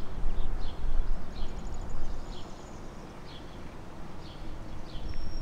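Level-crossing warning bell dinging over and over at a steady pace, about one to two strokes a second, over a low rumble that fades mid-way and swells again near the end.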